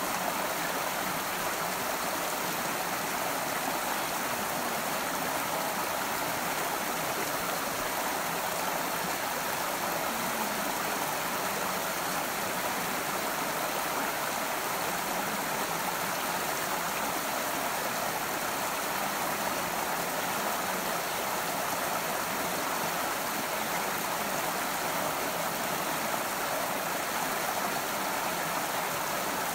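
A stream running over rocks, giving a steady, even rush of water.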